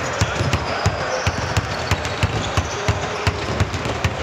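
Basketballs bouncing on a hard court: irregular, overlapping thumps, several a second.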